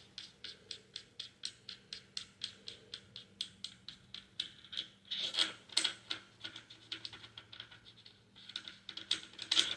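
Knurled nut on a Tokarev TAR-12 12-gauge shotgun being unscrewed by hand, giving a steady run of small clicks about four a second, with a louder cluster of clicks about halfway through.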